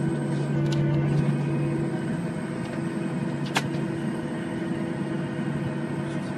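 Steady hum and drone inside an airliner cabin, with constant low tones and a faint high whine, and a single sharp click about three and a half seconds in.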